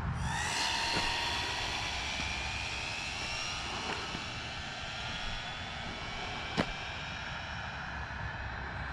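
Arrma Vendetta RC car on a high-speed pass: its brushless electric motor and drivetrain give a high whine that climbs at the start, then holds and slowly fades. One sharp click comes about six and a half seconds in.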